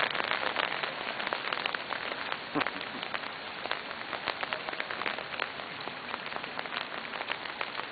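Rain falling steadily, with many separate drops ticking and pattering.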